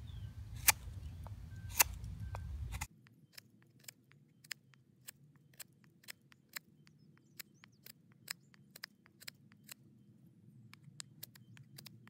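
Knife blade carving a wooden fork blank: a string of short, sharp cuts as it takes shavings off the wood, about two a second, the first two the loudest.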